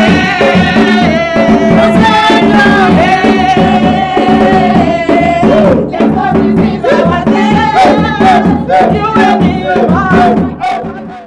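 A group of voices singing together over a steady drum beat. It cuts off suddenly near the end.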